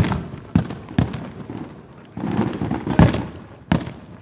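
Fireworks exploding overhead: about five sharp bangs, the loudest about three seconds in, with crackling between them.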